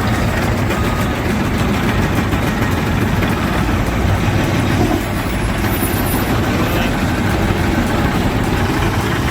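Heavy machine's diesel engine running steadily under a continuous mechanical noise.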